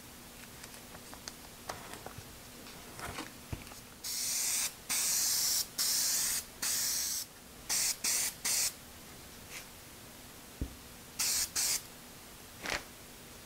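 Aerosol can of 3M Super 77 spray adhesive spraying in hissing bursts: four sprays of about a second each starting about four seconds in, then three short puffs, and two more short puffs near the end. Light clicks of tape being handled come before.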